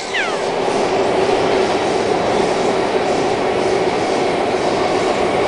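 Steady running noise of a metro train carriage in motion, heard from inside the car.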